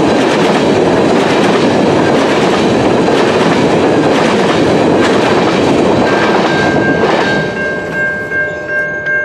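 The last covered hopper cars of a long freight train rolling past, wheels clacking over the rail joints. The running noise drops off sharply about seven seconds in as the end of the train passes, leaving a steady high ringing tone.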